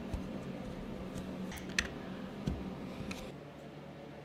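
A few light clicks and taps as small neodymium magnets are pressed by hand into holes in a painted plywood part, over a faint steady hum.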